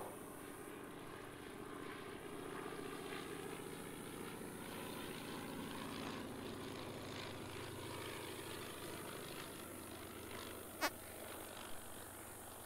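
Vultee BT-13 Valiant trainer's radial engine and propeller droning steadily at low power as it comes in to land. A single sharp click stands out about eleven seconds in, with a fainter one just after.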